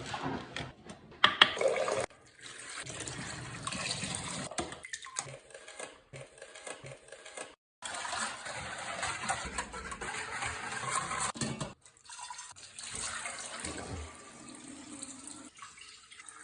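Water running and splashing, like a tap filling a jug or sink, in several short segments with abrupt cuts between them.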